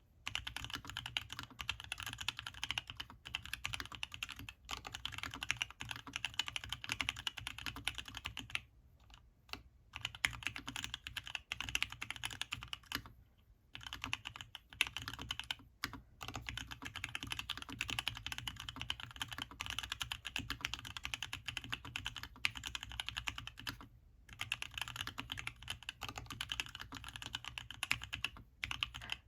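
Continuous fast typing on a custom LZ-CLS mechanical keyboard with lubed black Gateron Ink linear switches on a carbon fibre plate, HammerWorks CRP Desko keycaps and dampening material inside, with a few short pauses.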